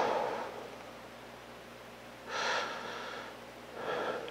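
A man breathing audibly while he holds an aimed air rifle steady before the shot, keeping his breathing controlled. A louder breath fades out at the very start, then two more breaths come about two and a half and four seconds in.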